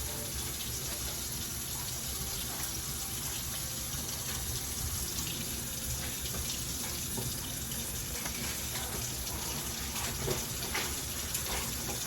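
Kitchen tap running steadily into a sink, with a few light knocks near the end.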